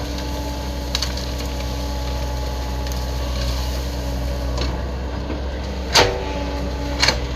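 Excavator running steadily at a constant pitch, with a sharp crack about a second in and two louder cracks near the end, one about a second after the other.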